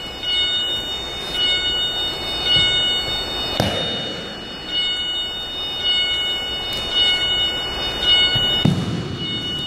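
Aikido breakfalls: a body slapping down onto the training mat as the partner is thrown, once about three and a half seconds in and again near the end. A steady high whine of several tones runs behind, dropping out now and then.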